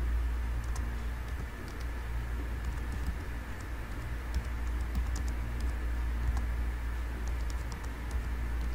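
Typing on a computer keyboard: light key clicks in irregular runs over a steady low hum.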